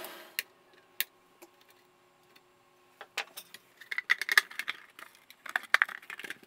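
Hands handling and flipping over the opened Valhalla Scientific 2101 power analyzer: two sharp clicks in the first second, then a busy run of knocks and rattles of its case from about three seconds in.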